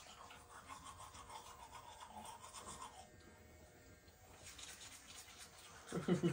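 Manual toothbrush scrubbing teeth in faint back-and-forth strokes. About six seconds in, a short pulsing vocal sound from a person is the loudest thing.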